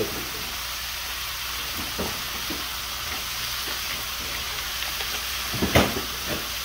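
Vegetables frying in a skillet, a steady sizzle throughout, with a few faint ticks and one sharp tap a little under six seconds in.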